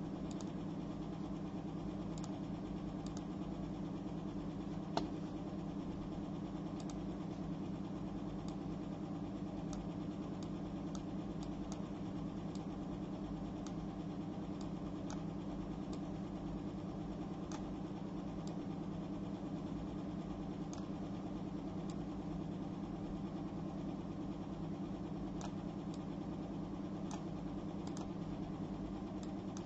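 A steady low hum with faint scattered clicks, one slightly louder about five seconds in.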